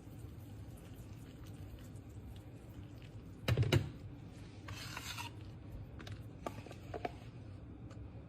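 Small kitchen items handled by hand, with light rubbing and scraping and a few faint clicks, and one louder knock about three and a half seconds in, over a low steady hum.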